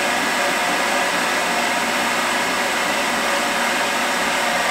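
Handheld hair dryer running steadily on its warm setting, a constant rush of air with a motor whine, blowing onto a folded EVA plastic goose decoy to warm and soften the plastic so it expands back into shape.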